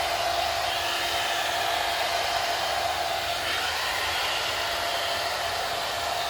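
AGARO HV2179 1200-watt hot-air blow brush running steadily, blowing hot air with a steady whine, on its semi blow-dry plus heat setting.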